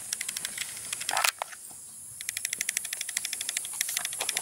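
Cicadas buzzing in rapid, even pulses over a steady high-pitched whine. A brief knock about a second in is followed by roughly a second of quiet before the buzzing resumes.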